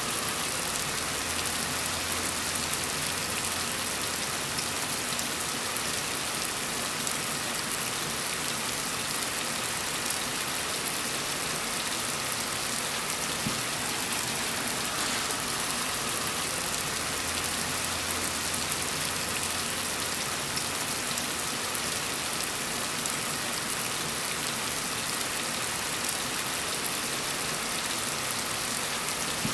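Heavy rain falling steadily: a dense, even hiss of countless drops striking surfaces.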